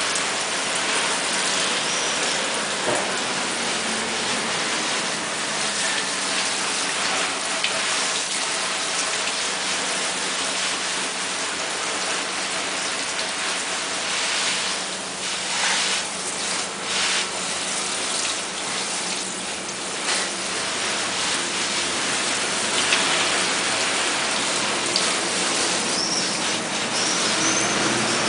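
Water from a garden hose spray nozzle showering onto a cart's PVC deck cover and the wet tiled floor, a steady rain-like hiss and spatter: simulated very intense rain.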